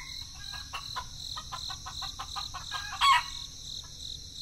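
Chickens calling: a run of quick short clicking clucks, then one short loud call about three seconds in, over a steady high-pitched insect buzz.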